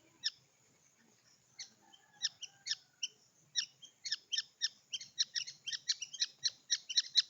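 Birds chirping: short, shrill chirps, a few scattered at first, then a quick, steady run of about four a second from about three and a half seconds in, growing louder.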